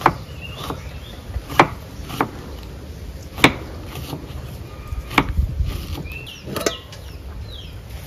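A knife chopping on a wooden cutting board: sharp knocks at irregular intervals, about one a second. Chickens cluck in the background.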